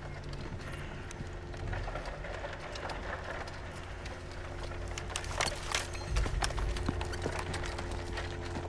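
Footsteps and movement through forest undergrowth: rustling with sharp twig snaps and crackles that thicken about halfway through, over a low steady hum.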